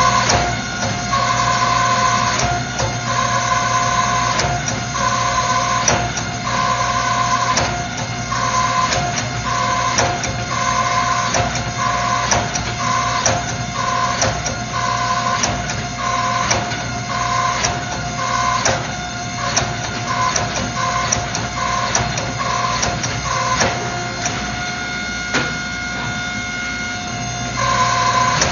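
Hydraulic forging press running through drawing strokes on a Damascus billet: a steady pump hum, with a higher tone that cuts in and out about once a second and scattered sharp clicks.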